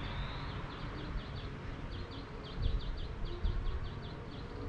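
Rapid high chirping from a small animal, a steady run of short, downward-sliding notes at about five or six a second, over a low rumble.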